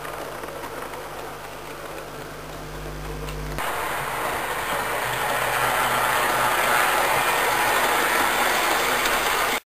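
Model railway train running along the track: a steady rolling rumble of wheels on rail with a low motor hum. It jumps louder about three and a half seconds in, grows as the train passes, and cuts off abruptly near the end.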